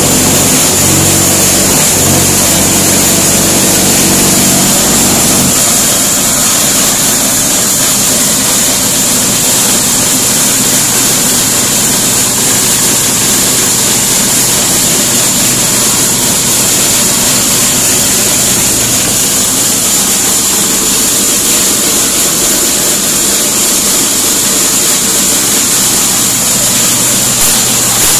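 Engine-driven machinery running steadily with a loud, even hiss. A low engine hum in the first five seconds or so drops away, leaving the hiss and a fainter drone.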